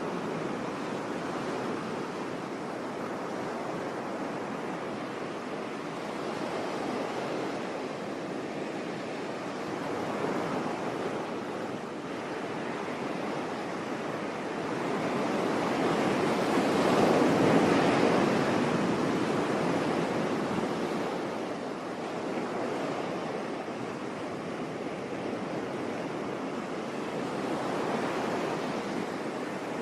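Sea waves breaking on a beach, a steady wash of surf. One larger wave swells and breaks a little past halfway, then eases off.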